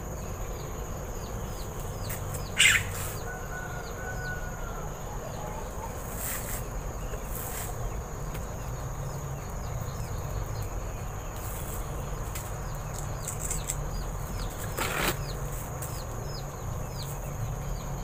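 A pet scops owl rustling its feathers as it spreads and shakes out its wings: a few short rustles, the loudest about two and a half seconds in and another a few seconds before the end. Crickets chirr steadily and high-pitched throughout.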